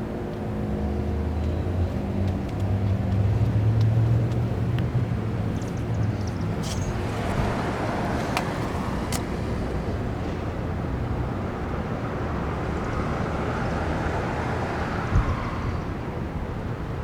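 Road traffic passing on a town street: a vehicle's low engine rumble in the first few seconds, then a car's sound swelling and fading past near the end.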